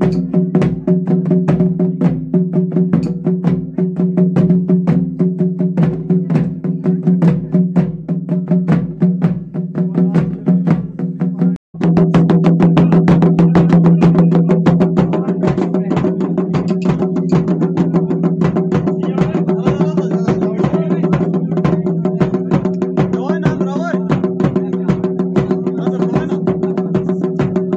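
Traditional Himachali temple music for a deity procession (dev dhwani): fast, even drumbeats over a steady held drone. It cuts out for a moment about twelve seconds in, then resumes a little louder.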